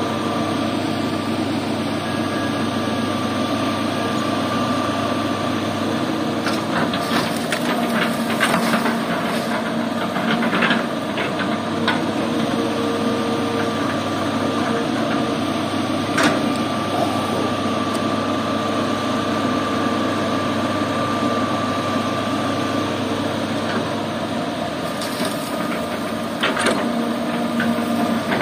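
An excavator's diesel engine runs steadily, with steady whining tones over it. Now and then come sharp clunks and rattles as the bucket drops earth and stones into the steel bed of a dump truck, in clusters about a third of the way in, once just past halfway and again near the end.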